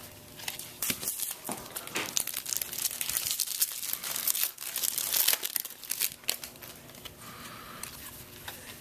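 Foil trading-card pack wrappers crinkling and tearing, mixed with baseball cards being handled and flipped through by hand: an irregular run of short crackles and snaps.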